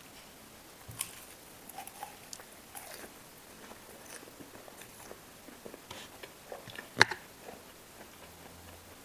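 Close-up eating sounds: biting and chewing with scattered small wet clicks and crackles, and one sharp, loud click about seven seconds in.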